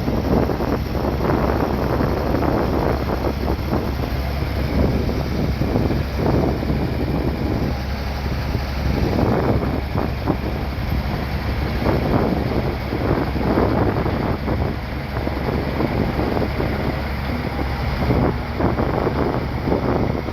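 Bulldozer's diesel engine running steadily under work, a constant low drone, with wind buffeting the microphone in irregular gusts.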